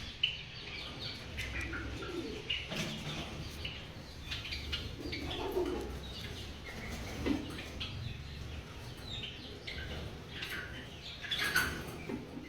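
Caged Java sparrows chirping, with repeated short calls, some lower notes, wing flutters and a few sharp clicks.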